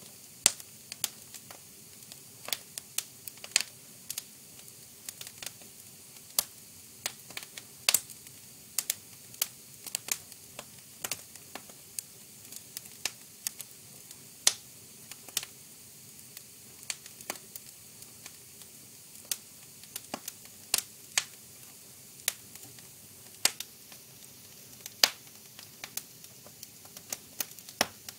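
Fire crackling: irregular sharp pops and snaps, sometimes several a second, over a faint steady hiss.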